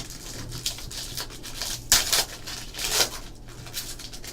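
A football trading card pack being torn open and its cards handled: a series of brief rustles, rips and slides of the foil wrapper and cards, loudest about two and three seconds in.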